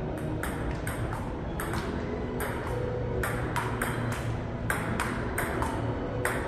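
Table tennis rally: the ball clicks sharply off the paddles and the Prince table in quick alternation, about two to three hits a second.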